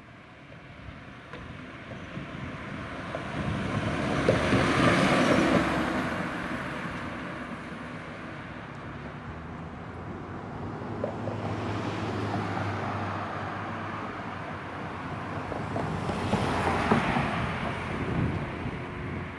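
Fire engine passing on the road, its engine and tyre noise swelling to a peak about five seconds in and then fading. A second vehicle swells past near the end. No siren sounds.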